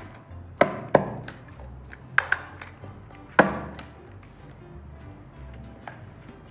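Handheld stapler snapping shut through sheets of paper, about four sharp clunks spread over a few seconds, with faint background music.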